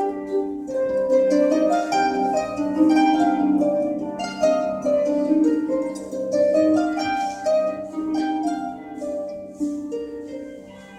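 An ensemble of concert harps playing a flowing line of many plucked notes that ring and fade, growing quieter toward the end.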